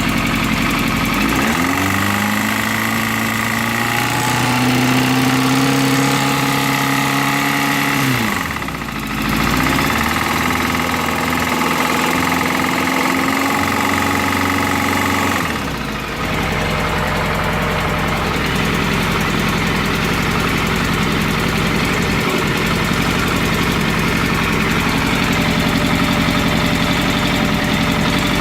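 Yamaha FZS600 Fazer's 600 cc inline-four engine, which has a knock. It is held at raised revs twice, dipping briefly in between, then drops back to a steady idle about halfway through.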